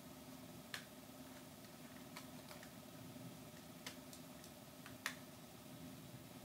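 A few light clicks and taps from handling a Sony NEX-FS100 camcorder, the sharpest about five seconds in, over a faint steady hum.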